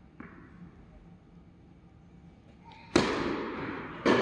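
Tennis ball being hit: a faint knock just after the start, then about three seconds in a loud, sharp racket strike with an echoing tail, and another about a second later.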